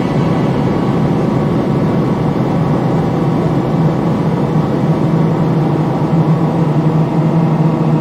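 Dark, eerie horror ambience: a steady, dense drone of many held low tones, the low hum swelling a little near the end.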